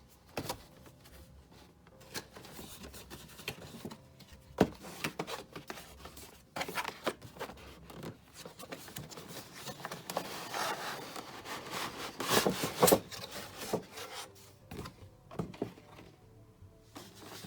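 Toy packaging being opened and handled: cardboard and a plastic cover piece rubbing and scraping, with scattered clicks and knocks, busiest and loudest about 10 to 13 seconds in. Faint background music underneath.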